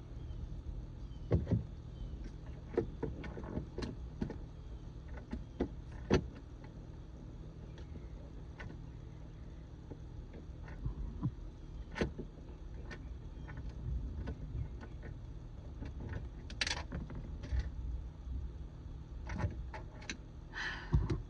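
Scattered clicks, taps and knocks of hand tools, screws and plastic parts being handled while a fuel pump relay is unbolted, with two short rustling scrapes near the end.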